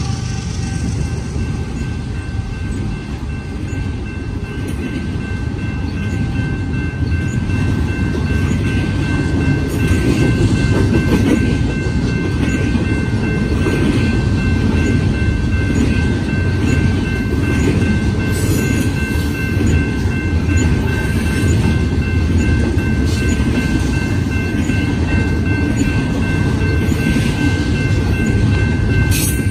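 Double-stack intermodal train's container-laden well cars rolling past, a steady heavy rumble of steel wheels on rail, with a thin steady high ring over it.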